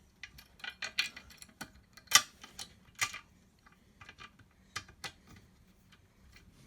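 Small hardware being handled and fitted: irregular light clicks and taps of a washer, nut and bolt against the metal frame, the sharpest about two seconds in and another about three seconds in.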